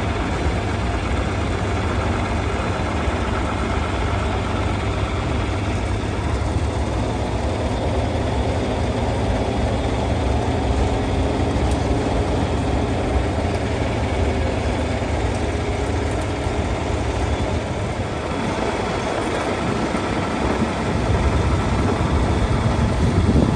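Farm tractor engine running steadily as the tractor pulls a hay wagon along a dirt track, a little louder near the end.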